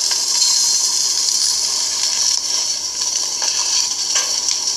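Steady sizzling hiss of bratwurst sausages cooking on a hot grill.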